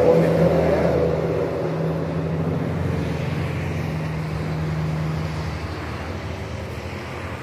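Paper wasps (marimbondos) buzzing in flight around their nests, a steady low hum that fades slowly toward the end; the wasps are stirred up and taking to the air.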